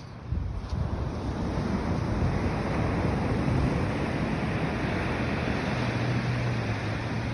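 Ocean surf and wind on the microphone, coming in suddenly just after the start and then holding steady, heaviest in the low rumble. A low steady hum joins near the end.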